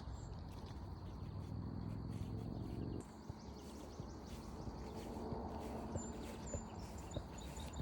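Footsteps on a forest trail, as separate soft knocks, with a few brief high bird chirps near the end. A low steady rumble underneath stops about three seconds in.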